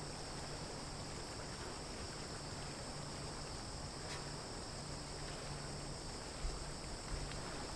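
Steady high-pitched chorus of insects chirring in summer heat, unbroken throughout.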